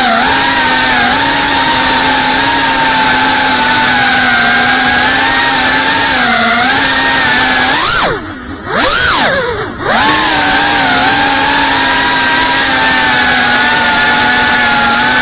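FPV quadcopter's brushless motors and propellers whining at a steady pitch, heard close from the onboard camera. About eight seconds in, the throttle drops twice in quick succession, the pitch falling and climbing back each time, before it steadies again.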